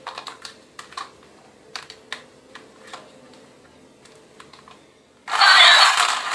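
Scattered small plastic clicks and taps as batteries are fitted into a battery-powered musical toy gun, then about five seconds in a loud, harsh noise from the toy gun starts suddenly.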